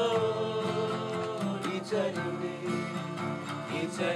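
Acoustic guitar strummed, accompanying a song in a pause between sung lines.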